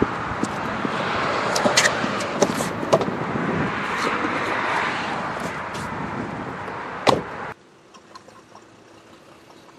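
Steady outdoor noise with a few light clicks, then a car door shut with one sharp thump about seven seconds in; right after, the sound drops abruptly to a faint low hum.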